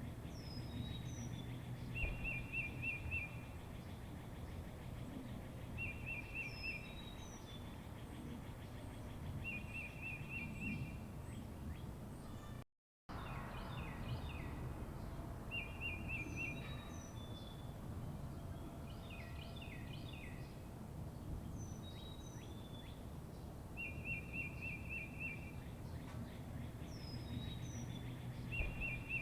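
Wild birds chirping: one bird repeats a short, rapid trill every few seconds while others give scattered high, falling chirps, over a steady low background rumble. The sound cuts out completely for a split second about halfway through.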